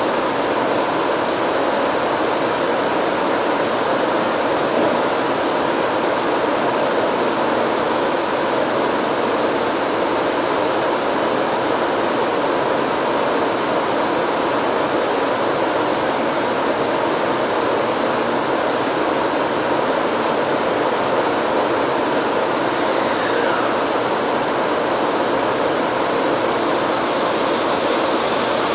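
Steady rushing noise with a faint even hum from a Taiwan High Speed Rail 700T train standing at the platform, its equipment running as it waits to depart.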